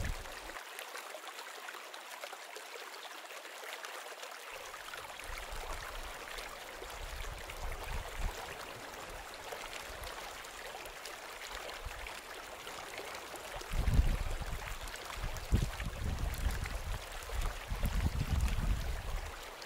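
Shallow river water running with a steady rush. Over the last few seconds, irregular low rumbles come and go.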